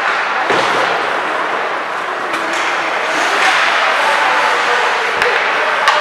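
Ice hockey in play: a steady, noisy wash of skates on the ice and voices in the rink. Two sharp knocks of stick or puck come near the end.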